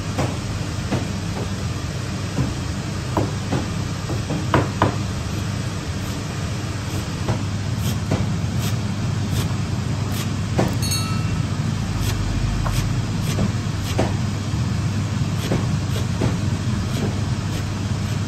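Chinese cleaver chopping fresh coriander on a plastic cutting board: scattered, uneven knocks of the blade through the stems onto the board. A steady low hum of kitchen machinery runs underneath and is louder than the chopping.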